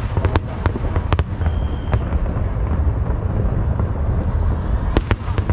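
Aerial fireworks bursting: a continuous deep rumble of shell explosions, broken by sharp cracks, two close together near the end.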